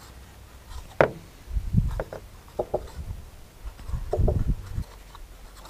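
Knife cutting chunks of steak on a plastic plate: a sharp tap about a second in and a few dull knocks and small taps.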